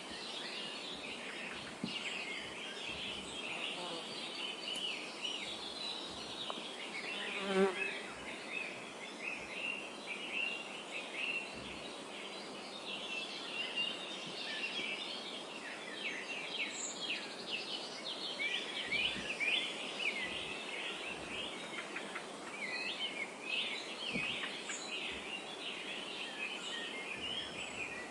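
Morning chorus of many small songbirds chirping and twittering, dense overlapping high chirps throughout. A short low buzz about seven and a half seconds in is the loudest moment.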